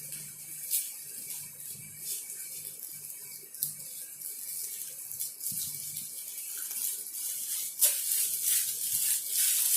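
Gift wrapping being handled and unwrapped: crinkling and rustling with sharp crackles, getting busier and louder toward the end.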